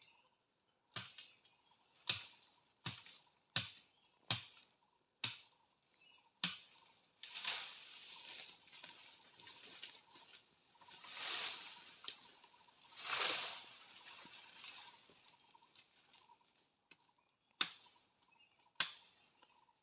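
Sharp chopping blows on wood, about one a second, seven in a row; then a long rustle of branches and dry leaves that swells twice; then two more chopping blows near the end.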